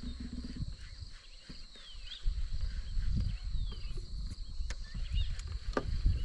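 Dawn bush ambience over water: a steady high insect drone with a bird's descending whistled call repeated three times, about a second apart. A low rumble comes in about two seconds in, and there are a few sharp clicks near the end.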